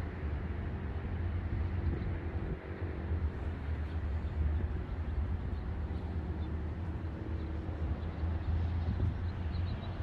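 Outdoor city ambience: a steady low rumble of distant traffic, with no siren tone sounding.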